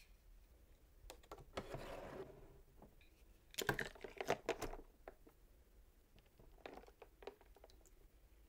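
A toy car clicking and knocking against a small clear plastic tub of water as it is dipped in and lifted out. There is a brief rustling swish about two seconds in, a cluster of louder clicks around four seconds in, and a few light taps near the end.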